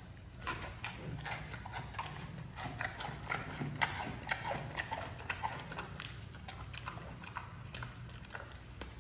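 Giant panda chewing bamboo shoots: a run of irregular crisp crunches and cracks, several a second, over a steady low hum.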